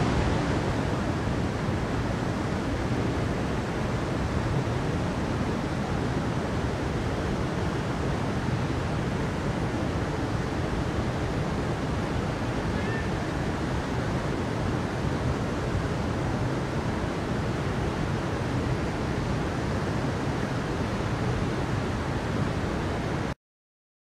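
Stream water rushing over rocks, a steady even rush that cuts off suddenly near the end.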